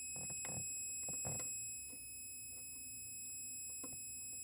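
Fluke 77 IV multimeter's continuity beeper sounding one steady high-pitched tone, with a few faint handling clicks. The tone signals only about 6 ohms between the oscilloscope's 15-volt rail and ground: a near short.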